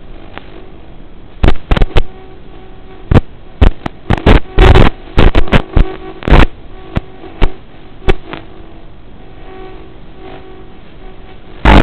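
Steady hiss with a faint hum, broken by a run of loud, sharp crackling knocks in the first half and two more later, one of them at the very end.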